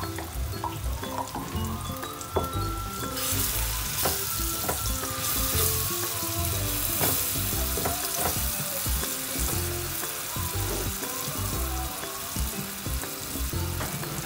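Blended chilli-spice paste frying in hot margarine with sautéed onions and garlic in a frying pan. The sizzle jumps up sharply about three seconds in, and a wooden spatula stirs and knocks against the pan.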